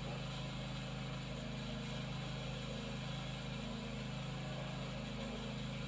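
Steady low mechanical hum, like an engine or motor running, unchanging throughout.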